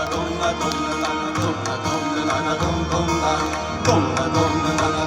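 Live music ensemble playing an instrumental interlude of a sung folk-style song, with quick drum strokes over sustained instrument tones.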